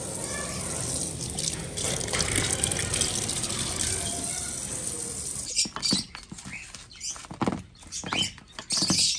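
Kitchen tap running steadily into a steel sink as fruit is rinsed under it. After about five and a half seconds the water gives way to short, irregular squelches and slaps of hands kneading dough in a steel bowl.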